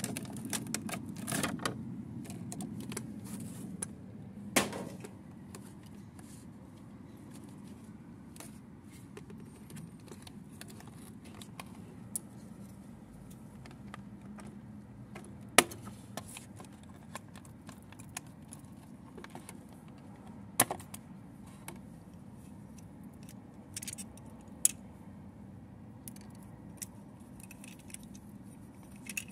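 Clear plastic toy packaging and its cardboard box being handled and opened: crinkling and rustling with scattered sharp clicks and snaps. The clicks are densest at the start, and the loudest single snap comes about fifteen seconds in.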